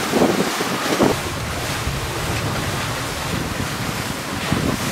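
Wind buffeting the microphone and the rush of sea water aboard a sailing yacht under sail: a steady, even noise.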